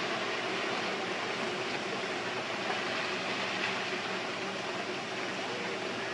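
Steady rushing of rock and earth sliding down a collapsing hillside: an active landslide still shedding debris.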